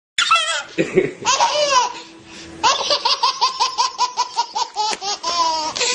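High-pitched laughter: squealing shrieks, then a rapid run of 'ha-ha-ha' pulses at about six a second.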